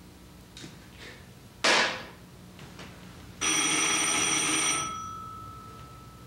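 A sharp clack about a second and a half in, the telephone handset going down. About two seconds later the telephone bell rings once for about a second and a half, then dies away.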